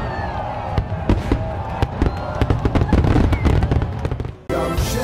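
Fireworks sound effect: rapid bangs and crackles with a few whistles over background music. It cuts off suddenly about four and a half seconds in, when a music jingle starts.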